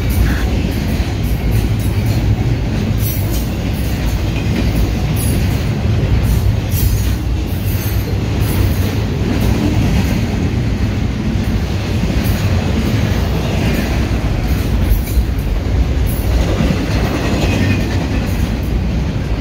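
Norfolk Southern double-stack intermodal freight cars rolling past: a steady, loud rumble of steel wheels on rail, with irregular wheel clicks and clacks.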